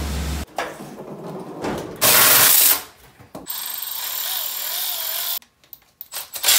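Cordless power tool running in spurts as it loosens a spark plug from a 305 Chevy small-block: a loud burst about two seconds in, then a steadier whirring run of about two seconds, followed by a few clicks near the end.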